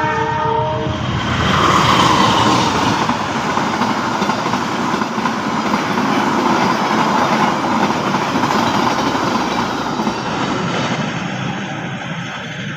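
A train passing slowly on a stretch of track under a temporary speed restriction, its wheels rumbling and clattering over the rails. A brief pitched tone fades out within the first second; the train is loudest about two seconds in and slowly tapers off near the end.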